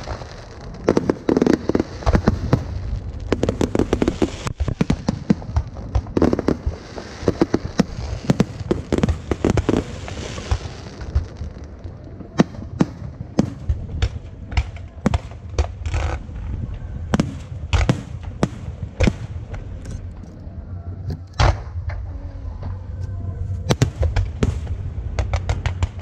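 Aerial fireworks display: a dense run of bangs and crackling for about the first ten seconds, then single sharp bursts going off one after another at irregular intervals.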